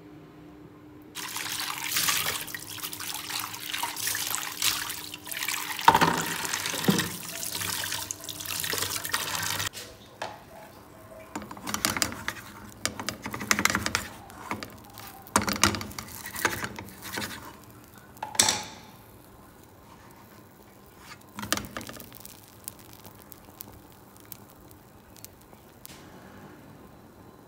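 Kitchen tap running into a steel sink during dishwashing, starting about a second in and stopping sharply about ten seconds in. Then scattered knocks and scrapes as a slice of bread is put into a frying pan to toast.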